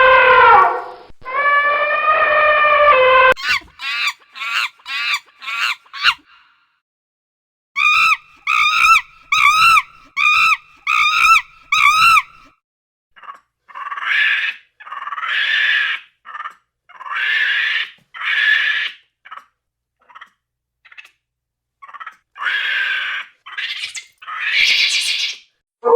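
A series of animal calls in separate runs: a long held call that drops in pitch about a second in, a quick string of short calls, a regular chirping run about two a second, then longer calls about a second each, some rising in pitch.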